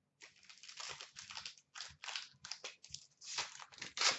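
Crinkling and rustling of a clear plastic wrapper or card sleeve being handled, in many short irregular crackles.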